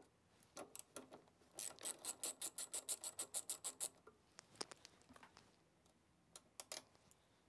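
Ratchet wrench with a 7/16-inch socket clicking in quick regular runs, about nine clicks a second, as it backs off a locknut on a steel recliner mechanism. Its longest run ends about four seconds in, and a few separate light metal clicks follow.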